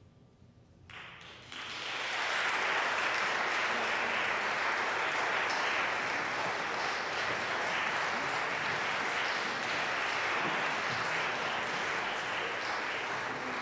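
Audience applauding in a church: the clapping starts about a second in as a faint held note dies away, swells quickly, holds steady and begins to ease off near the end.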